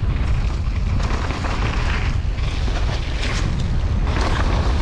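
Wind rumbling over a GoPro's microphone during a mountain bike descent on a wet trail, with the tyres and the bike rattling over rough ground in several short bursts.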